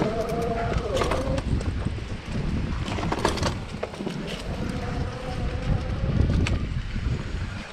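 Electric bike's rear hub motor whining at a steady pitch under power, dropping out about a second in and coming back for a stretch later on. Under it is a low rumble from riding over the dirt trail, with scattered sharp knocks and rattles from bumps.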